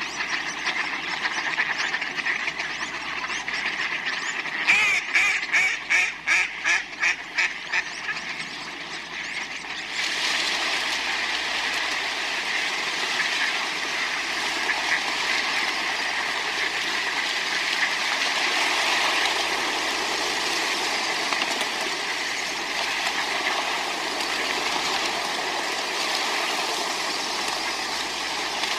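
Ducks quacking and splashing in water: a steady wash of water noise, with a rapid run of about a dozen quacks about five seconds in, and the water noise growing fuller from about ten seconds on.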